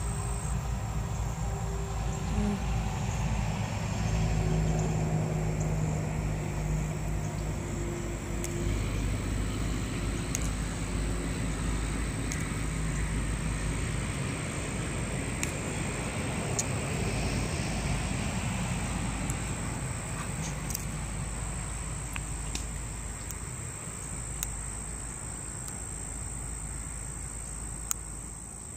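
Crickets chirping in one steady high drone, over a low rumble that is strongest in the first half and eases off in the second.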